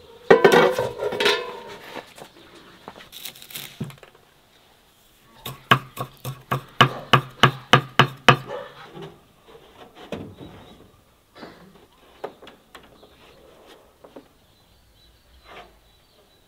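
A clank of the aluminium steamer's metal lid, then a chef's knife chopping fresh dill on a wooden cutting board: a quick, even run of about a dozen chops in three seconds, followed by a few scattered light taps.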